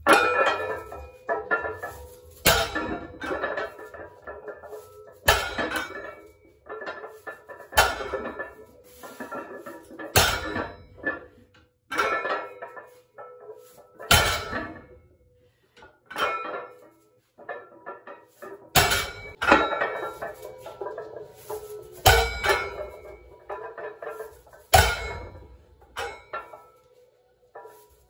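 A barbell loaded with iron plates (320 lb) is deadlifted for reps. The plates clank and ring each time the bar is set down, over and over, roughly every two to three seconds.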